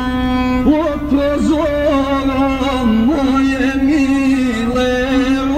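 Music: a melody that holds one long note, then about a second in starts winding up and down with quick ornaments, over a low steady rumble.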